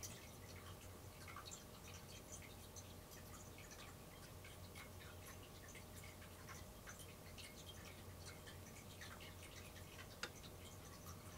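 Near silence: quiet room tone with a low steady hum and faint scattered ticks and clicks, one slightly sharper click about ten seconds in.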